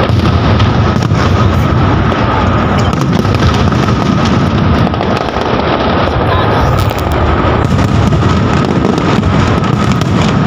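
Aerial fireworks shells bursting overhead in a dense, continuous barrage of overlapping loud bangs and crackles, with no pause.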